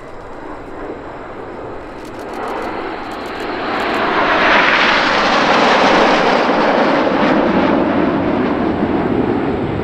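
Nine Red Arrows BAE Hawk T1 jets with Rolls-Royce Adour turbofans passing in close formation. The jet noise builds to its loudest about halfway through, then drops in pitch as the formation goes by.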